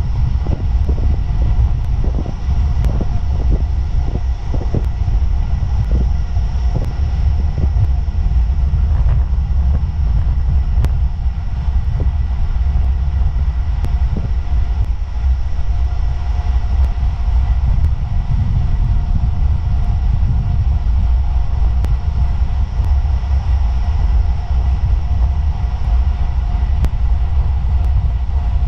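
Steady low rumble of wind buffeting an action camera's microphone on a moving road bike, with tyre noise on asphalt, and a run of light clicks in the first several seconds.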